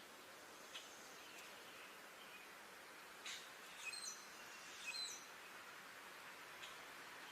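Songbirds giving a few short, high chirps and brief whistled notes over a faint steady hiss of background noise, the clearest calls a little past the middle.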